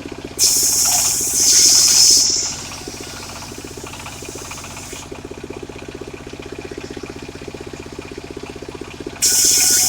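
Engine-driven circular saw running steadily while its blade rips through sengon wood twice: a loud hissing cut starting about half a second in and lasting about two seconds, and another starting near the end.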